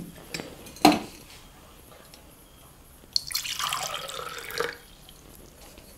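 Water being poured for about a second and a half past the middle, after two light knocks in the first second.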